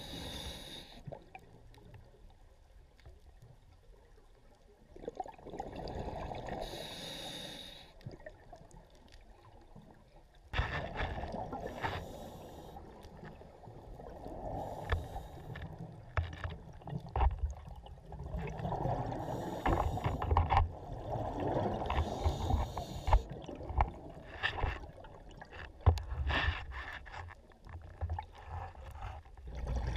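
Scuba diver breathing through a regulator underwater: a short hissing inhale every few seconds, alternating with rumbling, bubbling exhales that grow louder partway through.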